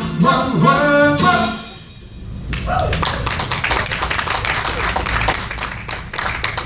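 A live band and singer finish a song, the music dying away about two seconds in, followed by audience applause.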